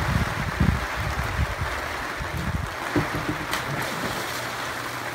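Heavy rain pouring onto a swimming pool, a steady hiss, with low rumbling gusts of wind on the microphone in the first second or so. About three and a half seconds in, a person jumps into the pool with a big splash.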